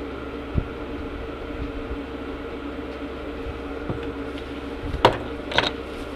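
Steady background hum, with a few short knocks and clatters of plastic shop-vacuum parts and packaging being handled, the loudest about five seconds in.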